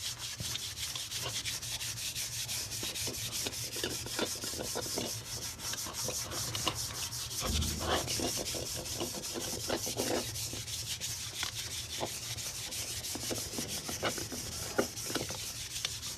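Iron wok being scrubbed inside and out with soda and dish detergent: a continuous scratchy scrubbing made of many quick strokes, with one dull bump about halfway through.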